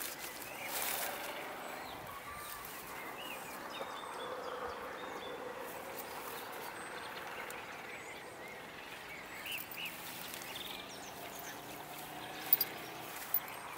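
Husky puppy rustling through dry brush, with faint scattered bird chirps in the open air; a few sharp clicks stand out near the end.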